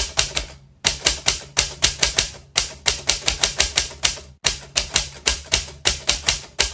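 Typewriter sound effect: keys clacking in a quick run of about six strokes a second, with brief pauses roughly every two seconds, as on-screen text is typed out.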